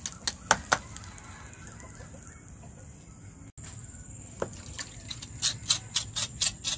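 Knife scraping the charred skin of a fire-singed pig's trotter held in a bucket of water: a quick run of short scrapes, about four a second, in the last second and a half, after a few sharp clicks at the start. Chickens cluck in the background.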